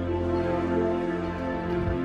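Background music: instrumental with long held notes.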